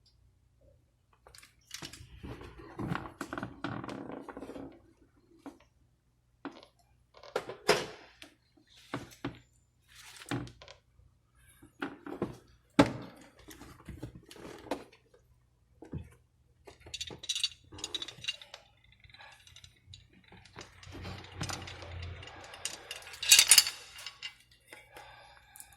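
Irregular knocks, clicks and light metallic clatter of hands working on car door parts, with rustling between. There are a few sharp knocks, the loudest about 13 seconds in, and a busier run of clinks near the end.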